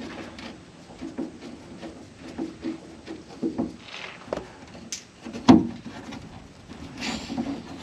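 Screwdriver and hands working at a fuel filler neck under a truck: scattered small clicks, scrapes and metal knocks, with one sharper knock about five and a half seconds in and a short scrape near the end.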